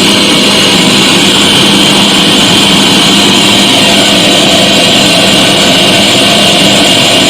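Loud, steady hiss with a low hum from a loudspeaker driven by a car deck amplifier fitted with two new 4440 ICs, running on test. The output section is working again after the failed ICs were replaced.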